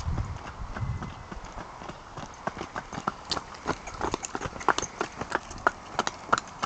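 Pony's hooves clip-clopping on wet tarmac as it is trotted in hand, the hoofbeats growing louder and sharper as it comes close. A low rumble sounds in the first second or so.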